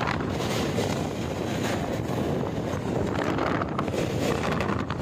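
A passenger express train running across a river bridge, heard from an open coach window: steady running noise of the wheels on the track, with wind buffeting the microphone.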